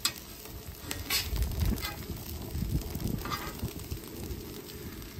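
Metal spatulas scraping and tapping on a flat-top griddle as corn tortillas frying in oil are lifted and folded into tacos: a few short scrapes, one about a second in and another a little after three seconds, over a faint sizzle.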